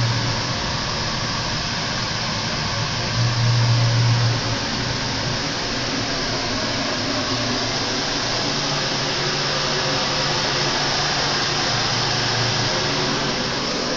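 Steady loud rushing of a kitchen ventilation fan, with a low hum that swells twice in the first half.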